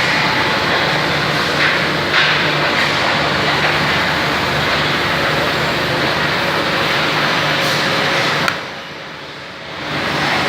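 A machine running steadily, a dense hiss over a low hum. The noise cuts off suddenly about eight and a half seconds in and builds back about a second later.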